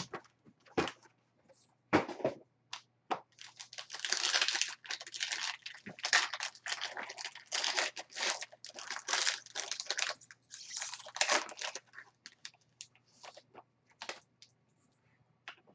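Plastic wrapping and card-pack wrappers crinkling and tearing as a box of football trading cards is opened, with irregular rustling that thins out to a few small clicks near the end as the cards are handled.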